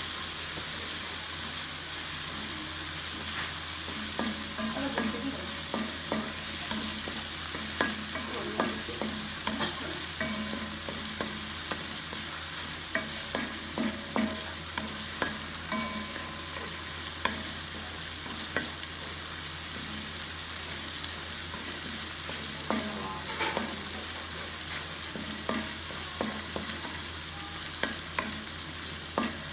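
Chillies frying in hot oil in a pan: a steady sizzle, with scattered clicks and scrapes of a spatula stirring them.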